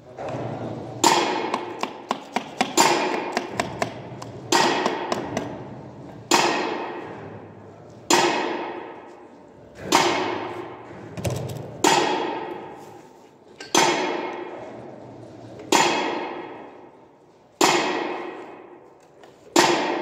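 Hammer blows on metal, about one every two seconds, each ringing out for a second or more, with a quick run of lighter taps near the start, while pistons are fitted into a Perkins six-cylinder diesel block.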